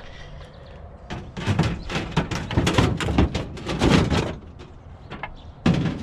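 A rapid run of knocks, rattles and scrapes from a lightweight piece of curbside junk and its cardboard box being handled, lasting about three seconds, with another short burst near the end.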